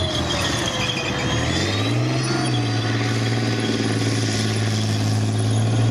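Tank engine sound effect: an engine running steadily, its pitch rising about a second and a half in and then holding.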